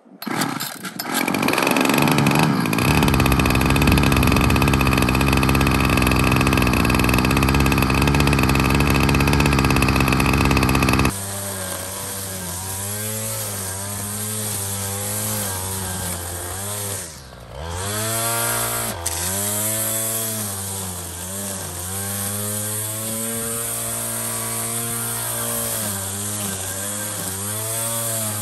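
Two-stroke string trimmer engine, just rebuilt after piston scoring from running straight petrol, starting up and running steady and loud. Partway through, the sound cuts to the engine revving up and down as the line cuts grass, dropping briefly to a lower speed about two-thirds of the way in.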